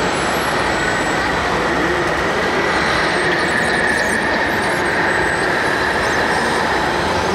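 Steady mechanical running of radio-controlled model construction machines, with a whine that swells in the middle as the RC crawler dozer pushes its blade of soil against the truck's tipper body. Faint voices can be heard behind it.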